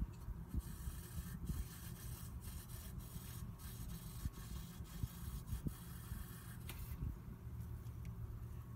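Aerosol can of Seafoam spray hissing for about six seconds, with short breaks, as it is sprayed into the engine during an oil change to flush old oil and crud down through the drain. It starts about half a second in and cuts off about seven seconds in, over a low steady rumble.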